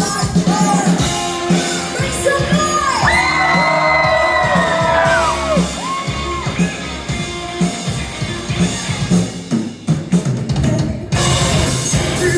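Rock band playing live, drums driving under a long held, bending note in the middle. The high end drops away briefly near the end, then the full band comes back in.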